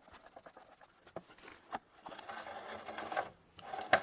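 Cordless screwdriver driving screws into a bicycle's plastic chain guard: a few light handling clicks, then the small motor runs for about a second, stops briefly, and starts again near the end with a sharp click.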